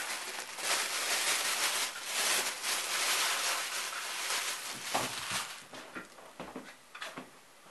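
A thin plastic bag crinkling and rustling as it is handled to wrap a half head of cabbage. The rustling stops about five and a half seconds in, leaving a few light knocks and clicks.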